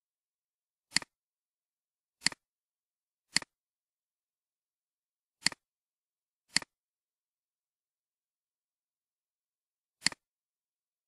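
Computer mouse clicks: six sharp clicks at uneven intervals, each a quick press-and-release double click, with dead silence between them.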